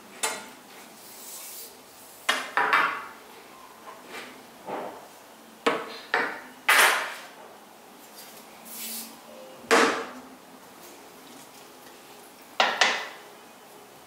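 Long steel kebab skewers clanking as they are set down, one after another, on a plastic cutting board: about eight sharp metallic clanks with a brief ring, some in quick pairs.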